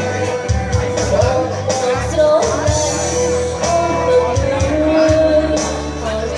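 A woman singing into a microphone through a PA system, holding long sung notes over loud amplified backing music with a drum beat.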